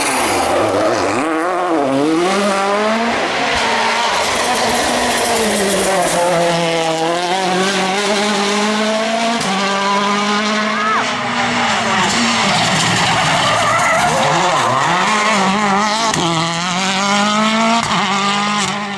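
World Rally Car's turbocharged 1.6-litre four-cylinder engine driven hard on a rally stage, its pitch rising through the revs and dropping again and again as the driver changes gear and brakes.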